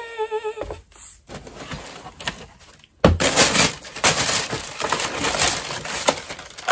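Packaging crinkling and rustling as shoes are lifted out of their shoe box, faint at first and then loud and dense from about three seconds in. A brief hummed note comes first.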